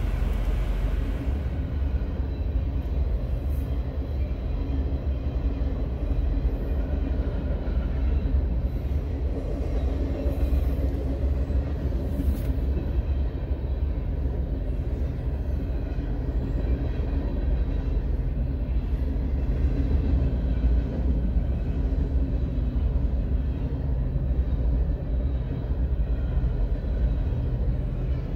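Freight train rolling past at a level crossing, its hopper cars, boxcars and tank cars making a steady low rumble, heard from inside a car's cabin.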